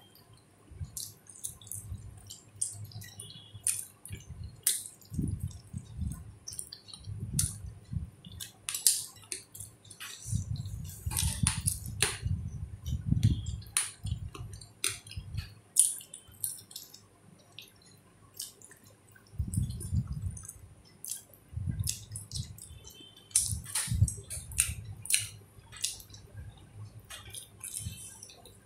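Close-up eating sounds of chicken curry being chewed off the bone by hand: wet smacking and sucking clicks, with stretches of heavier chewing.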